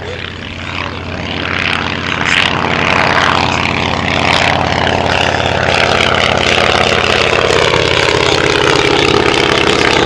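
Fleet 7 biplane's Kinner radial engine and propeller droning in flight. It grows louder over the first few seconds as the plane approaches, then holds steady, with its pitch easing slightly lower in the second half as the plane passes.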